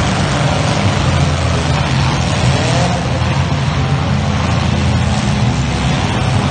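Demolition derby cars' engines running together at once, loud and steady, with a brief rev rising about two and a half seconds in.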